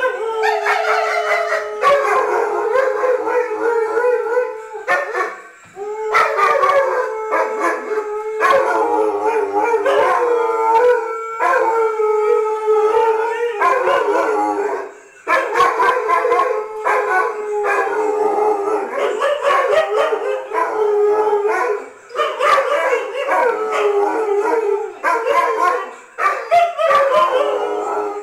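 Sighthound-type dogs howling in long, wavering calls that overlap, breaking off briefly a few times before starting up again.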